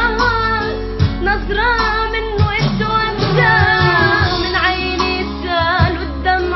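A song with a woman's voice singing a melismatic, ornamented melody over a rhythmic accompaniment with a steady beat.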